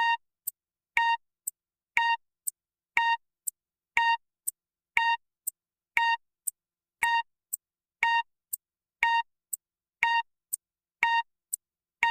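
Countdown timer sound effect: a short electronic beep once a second, with a brief tick halfway between beeps, counting down the thinking time after a quiz question.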